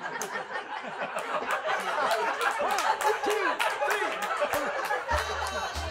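A crowd of people talking and laughing over one another, with sharp clicks scattered throughout.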